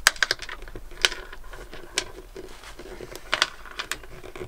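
Scattered sharp clicks and taps of hard plastic as the safety lanyard key is fitted to its post and the start controls of a Bombardier Sea-Doo GTX jet ski are worked. No starter motor turns and no engine catches: the freshly refitted battery gives no sign of life.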